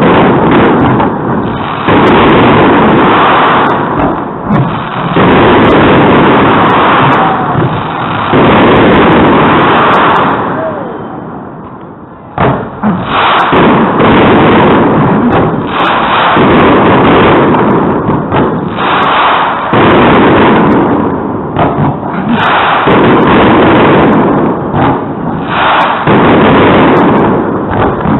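Fireworks display: shells bursting in a dense, near-continuous barrage of bangs and crackle. It eases into a brief lull about ten seconds in, and a sharp bang starts it again.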